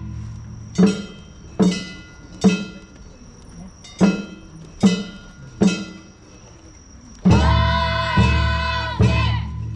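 Festival music for the Nagasaki Kunchi river-boat performance: a run of sharp struck notes that ring on, about one every 0.8 s with a short gap partway, then a louder held passage of several notes together near the end.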